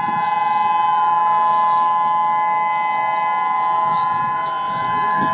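Outdoor civil defense siren sounding a tsunami warning: a loud, steady multi-tone wail that swells and eases slightly in loudness.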